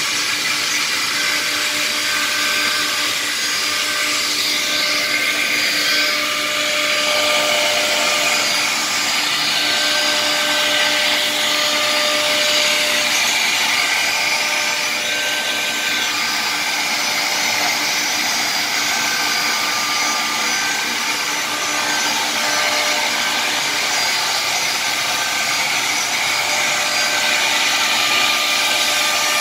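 Multi-spindle CNC router cutting a wood-grain laminated panel: a steady spindle whine and cutting noise over the rush of dust extraction, with short high tones coming and going as the cutter works. The cutting turns louder and harsher about seven seconds in.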